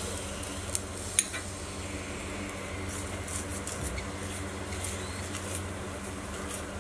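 Steel spoon scraping and tapping on a paratha and the hot griddle as it spreads ghee, with a couple of sharp metal clinks about a second in, over a steady low hum.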